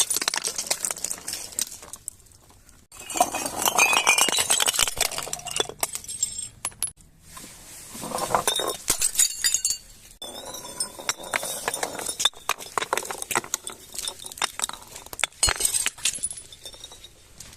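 Glass clinking and crunching, as broken glass is handled or crushed, in several bursts of rapid clicks separated by short pauses.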